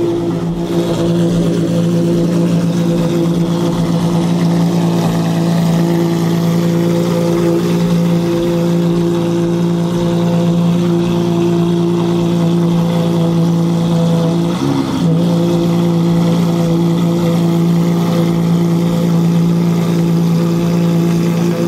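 Maserati MC12 Corsa's 6.0-litre V12 idling steadily at a fast, even idle; about fifteen seconds in the pitch dips briefly and comes straight back up.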